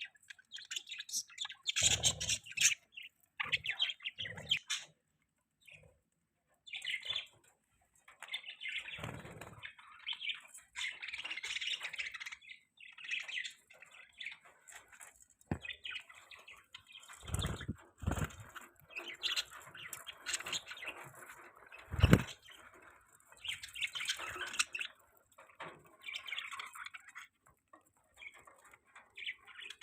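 Budgies chirping and chattering in irregular bursts, with a short pause about six seconds in. A few sharp knocks are mixed in, the loudest about 22 seconds in.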